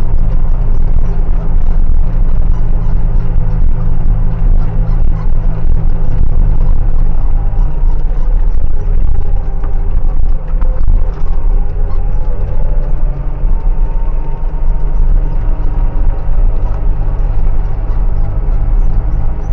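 An engine running steadily at constant speed, a loud, low, even drone.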